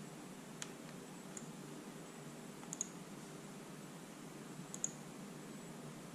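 A few sharp computer mouse clicks, two single and two quick pairs, while a CAD model's view is turned on screen, over a faint steady hum.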